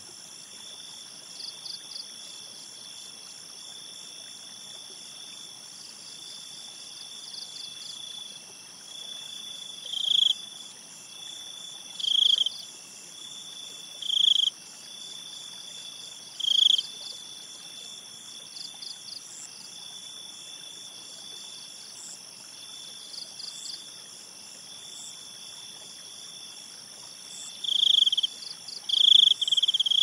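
Night-time crickets trilling steadily at several pitches. From about ten seconds in, a louder chirping call comes about every two seconds, and a quick run of the loudest chirps comes near the end.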